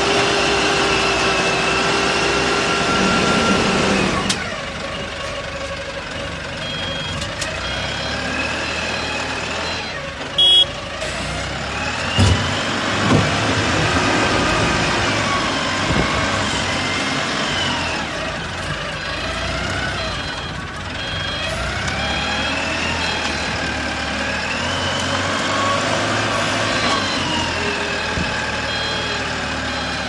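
Engine of an AS-1.8 self-loading concrete mixer truck running. Its pitch holds steady for about four seconds, then rises and falls again and again as it revs. A reversing alarm beeps in short runs several times, and there are a couple of brief knocks about ten to thirteen seconds in.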